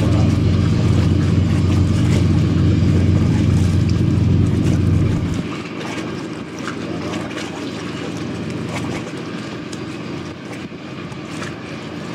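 Deep engine rumble from the high-speed passenger ferry Sindo Princess under way, with the rush of its bow wave. The heavy rumble drops away sharply about five and a half seconds in, leaving a lighter mix of engine and water noise.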